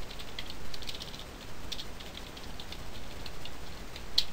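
Computer keyboard typing: irregular runs of key clicks, with one louder keystroke near the end.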